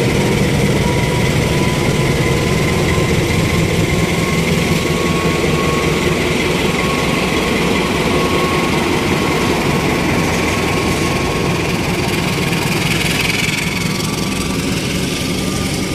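CC 206 class diesel-electric locomotive hauling a departing train past at very close range, its diesel engine running steadily under power. Near the end the passenger coaches roll past behind it.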